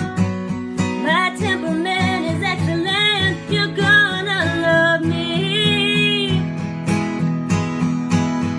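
Acoustic guitar strummed in a steady rhythm, with a woman singing a melody over it from about a second in until a little past the middle.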